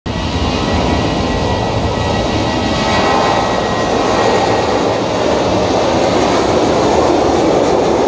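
Boeing 737 airliner's jet engines running at high power as it rolls along the runway: a steady, loud noise with a high whine in it that fades out over the first few seconds.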